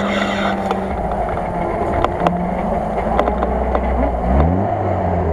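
Off-road 4x4 truck engine running steadily under load, revving up quickly about four seconds in, with a few sharp knocks around the middle.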